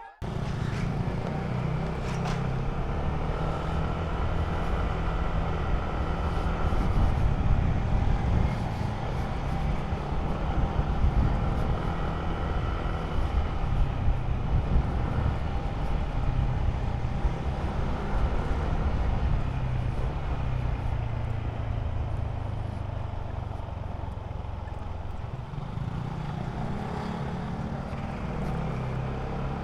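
Motor scooter riding along the road: a steady low engine drone with road and wind noise, easing a little about three-quarters of the way through and picking up again near the end.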